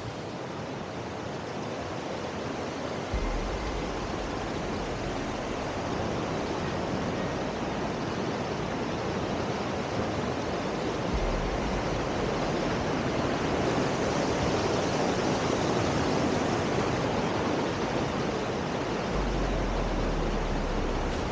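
Waterfall: a steady rush of falling water, with the low rumble underneath shifting at about 3, 11 and 19 seconds in.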